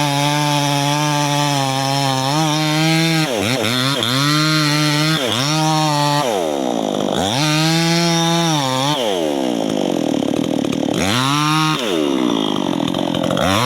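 Two-stroke chainsaw running at full throttle and cutting into a pine trunk. The engine pitch sags again and again as the chain bites into the wood and climbs back as it frees up, with the longest drops about halfway and near the end.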